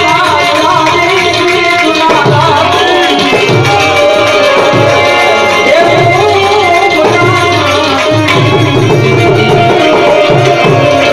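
A man singing a devotional song live, accompanied by harmonium and tabla, with the tabla drumming steadily under the melody.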